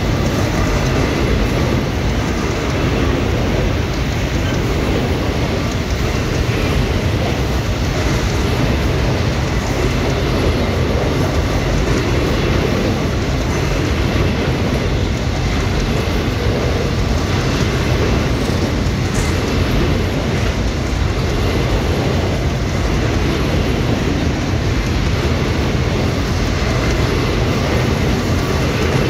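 Long freight train of covered hopper wagons rolling past at close range: a steady, loud noise of steel wheels running on the rails, heaviest in the low end, with no change in level.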